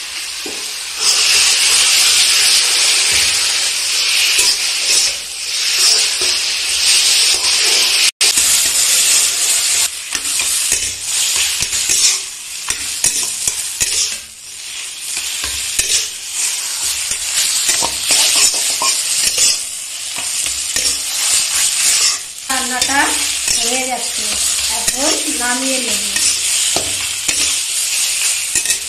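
Taro leaves and fish heads sizzling loudly in hot oil in a steel wok, stirred and scraped over and over with a metal spatula.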